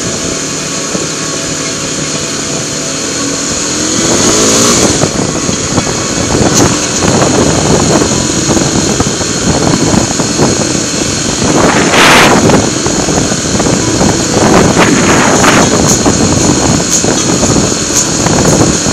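Kawasaki KLX300SM supermoto's single-cylinder engine running steadily, then revving up about four seconds in and carrying on louder as the bike rides. There is a brief loud rush about twelve seconds in.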